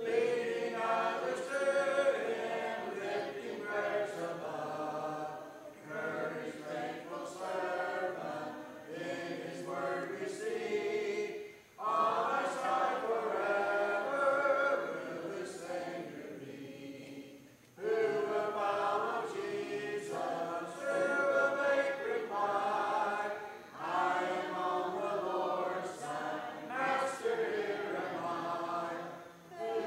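Congregation singing a hymn a cappella, many voices together without instruments, with brief breaks between phrases.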